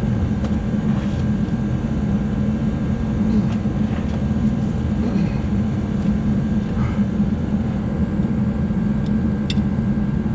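A steady mechanical drone, even in level throughout, with a few faint clicks near the end.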